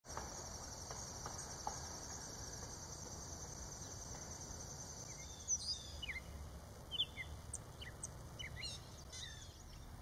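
A steady, high, pulsing insect trill for the first half, which stops about halfway through. Then a string of short, sweeping songbird chirps, over a low background rumble.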